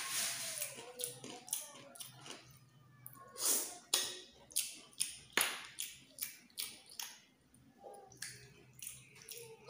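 Close-up eating sounds of a person eating snails cooked in coconut milk: sucking and slurping the meat and sauce from the shells, with a string of short mouth clicks and smacks in between. The longer slurps come near the start, about three and a half seconds in and about five seconds in.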